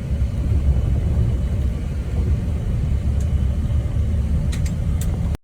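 Steady low rumble with a few faint clicks, like engines at a bus station.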